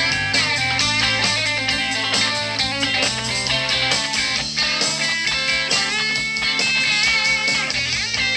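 Live blues band playing: electric guitars over a steady drum beat, with a saxophone.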